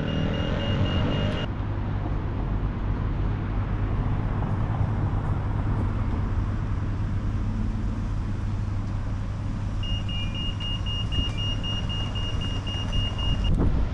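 Road traffic running steadily in a city street, with a high electronic beeping in quick regular pulses, about four a second, near the start and again for the last few seconds.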